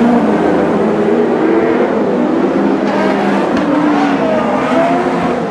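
Several Lightning Sprints mini sprint cars' engines running and revving together on a dirt speedway, a mix of engine notes rising and falling as the field circles for a restart.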